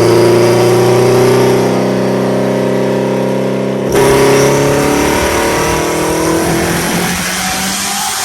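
Engine of a Honda-swapped Toyota MR2 running hard at a fairly steady pitch; about four seconds in the sound changes abruptly, then the engine note falls and fades away.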